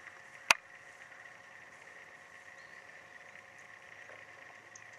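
One sharp click about half a second in, over a steady faint high-pitched hum.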